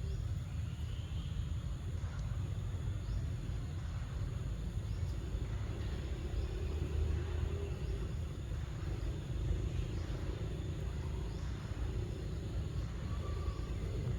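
Steady low rumble of outdoor background noise, with faint wavering tones in the middle range and no distinct animal calls.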